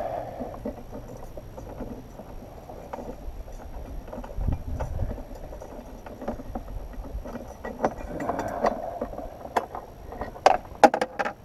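A hard plastic bracket part handled by hand and knocked against the motorcycle's rear bodywork, making scattered clicks and taps. A quick run of sharp clicks about ten seconds in is the loudest.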